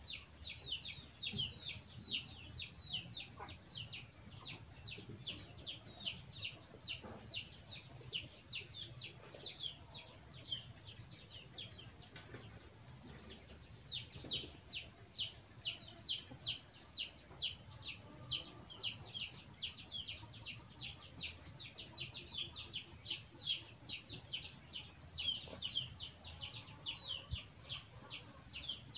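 A bird calling in rapid runs of short, falling chirps, about four a second, with a break about halfway through. Under it is a steady, high-pitched insect drone.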